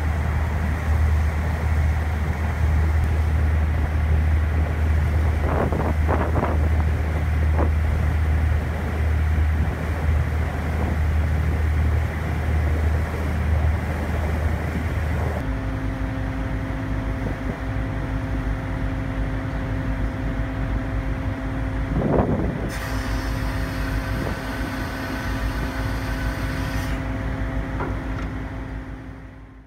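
Boat engine running with a steady low drone under wind and water noise. About halfway through, the drone drops to a lighter hum with a few steady tones, and then the sound fades out.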